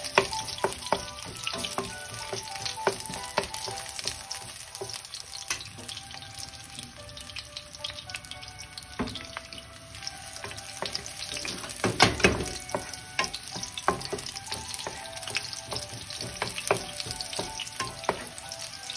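Chopped garlic sizzling as it sautés in hot oil in a pan, with scattered clicks and scrapes of stirring and a louder clatter about twelve seconds in.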